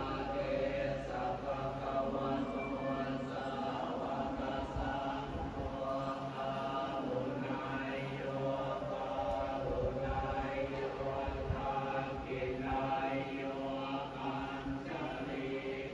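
Buddhist chanting by a group of voices in unison, held on a steady, level pitch.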